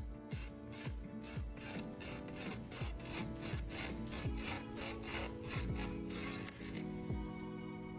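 Quick repeated rasping strokes, several a second, over soft background music; the strokes stop about seven seconds in.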